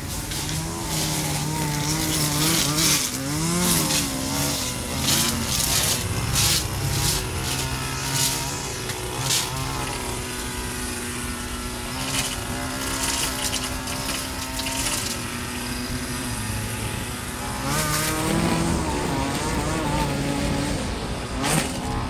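Two-stroke gas string trimmer running, its engine revving up and down with the throttle, with many sharp ticks as the spinning line strikes debris.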